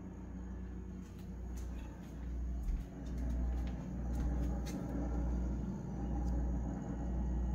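Whirlpool appliance making a low grinding rumble that swells and dips about once a second, with a few light clicks; the owner does not know what is causing the noise.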